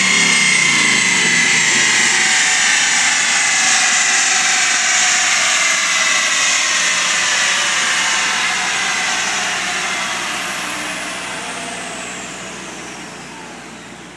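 A Shelby GT500's drivetrain and rear tyres spinning down on chassis dyno rollers after a full-throttle pull: a loud whirring whine that falls slowly in pitch and fades away.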